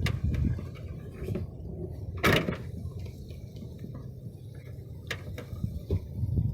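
A pickup truck door clunks shut once, sharply, about two seconds in, with a few lighter clicks before and after, over a low rumble.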